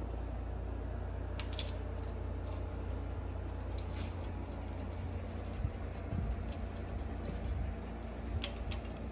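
A few light clicks of parts being handled while rocker arms are fitted to a big block Chevy V8, over a steady low hum.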